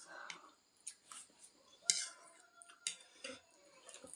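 Eating utensils clicking and tapping against ramen bowls during a meal, a few sharp clicks about a second apart, the loudest about two seconds in, with faint eating sounds between them.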